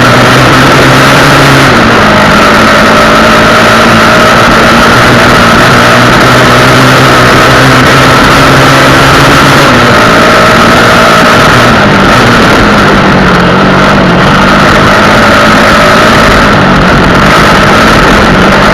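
Honda XR Tornado 250 single-cylinder motorcycle engine running loud and close to the microphone, its pitch holding steady and stepping down a few times as engine speed changes.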